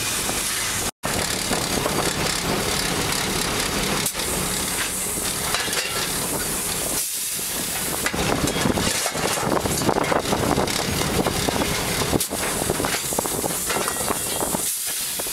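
Steam locomotive cab noise: the steady hiss of steam and the running locomotive. From about halfway through, a shovel scrapes and clatters as the fireman shovels coal into the firebox.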